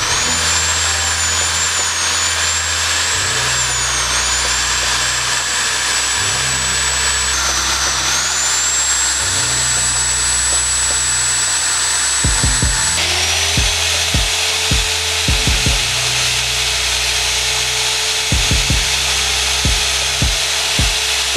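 High-speed rotary tool spinning a brass wire brush against a toy metal locomotive body, a steady whine that dips in pitch now and then as the brush is pressed on. About halfway through, a larger bench-mounted wheel takes over, with a lower steady hum under the high whine.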